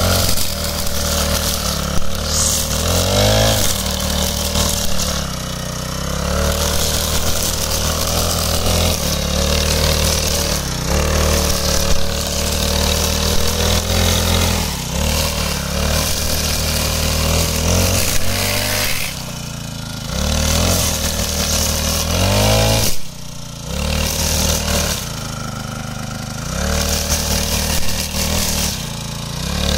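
Small four-stroke engine of a wheeled brush cutter running at high speed as its spinning head cuts through tall grass. The revs drop and climb back several times, with two short throttle-downs about two-thirds of the way through.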